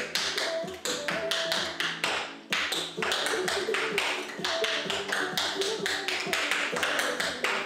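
Metal-plated tap shoes striking a wooden tap board in quick rhythmic taps, several a second, with a brief pause about two seconds in, over background music with a melody.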